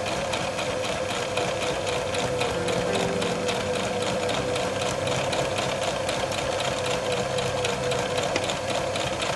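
Sewing machine running steadily, stitching a seam: a constant motor hum with a fast, even ticking from the needle mechanism.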